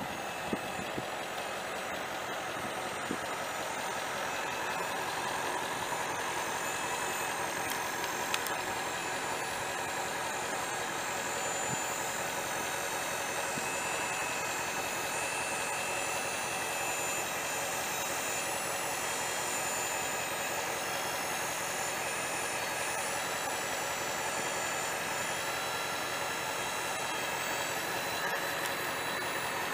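Ford 7.3-litre V8 turbo diesel idling steadily.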